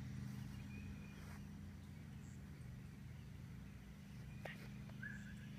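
Faint woodland ambience: a steady low hum, with two short high bird chirps and a single sharp click near the end.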